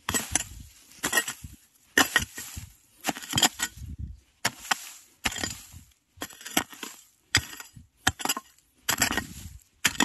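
A hand hoe chopping again and again into stony soil to dig out a spring bamboo shoot, about one stroke a second, each blow a sharp knock followed by a short scrape.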